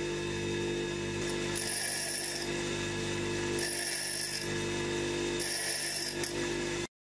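Bench grinder running steadily while a twist drill's point is pressed to the wheel three times, about two seconds apart, each contact adding a short high-pitched grinding noise. The sound cuts off suddenly just before the end.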